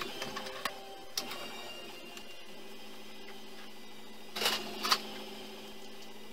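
Light clicks and clinks of metal being handled at a bench vise, then two short, loud scraping sounds about half a second apart, over a faint steady hum.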